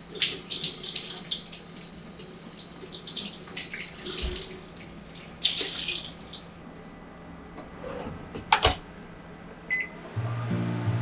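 Water from a kitchen tap splashing as a hand towel is soaked and wrung out in the sink. Near the end comes a sharp click and a short beep, as a microwave door is shut and the oven started, and guitar music comes in.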